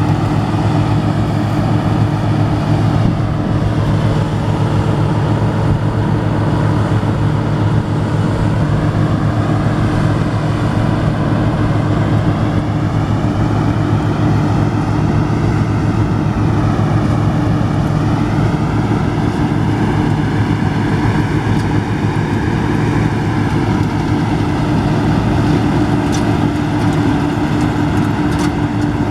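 Combine harvester running steadily at working speed: a loud, even engine drone with a constant whine from the threshing machinery above it.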